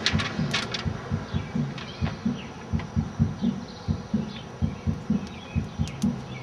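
Irregular low thumping, about two to three thuds a second, with birds chirping faintly over it.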